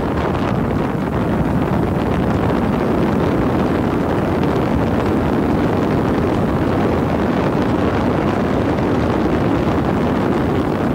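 Wind rushing over the microphone of a motorboat under way, blended with the boat's engine and water noise into one loud, steady rush.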